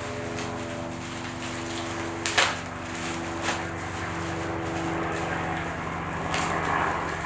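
A few sharp clicks and knocks from the metal detector's shaft parts being handled during unpacking, over a steady low mechanical hum.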